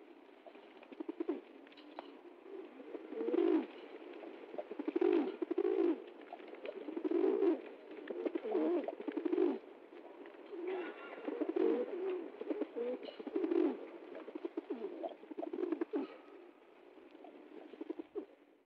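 Pigeons cooing, low repeated coos coming about once a second, some overlapping.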